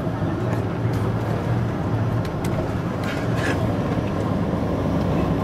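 Steady low engine and road rumble heard from inside a moving bus, with a few faint clicks.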